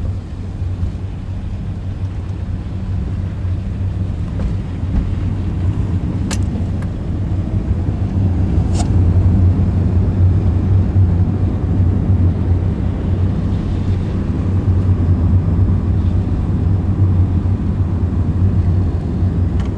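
Car interior noise while driving: a steady low rumble of engine and road, heard inside the cabin, growing louder about halfway through. Two brief sharp clicks stand out, one about six seconds in and another about nine seconds in.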